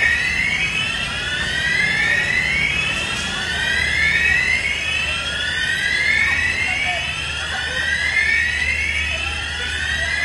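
Electronic alarm sounding a repeated rising whoop, about one sweep every second and a half, over a low steady rumble. It is going off in a street of shops whose windows the explosion has just blown out.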